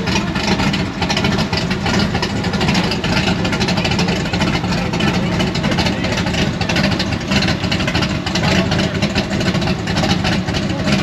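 Drag car engine idling, loud and steady.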